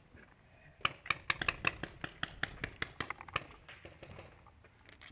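Rapid paintball fire: a string of sharp pops, several a second, starting about a second in and stopping a little past three seconds.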